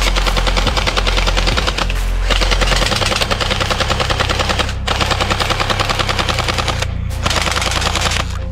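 Toy AK-47-style machine gun firing in long rapid bursts, the bursts broken by brief pauses about four times.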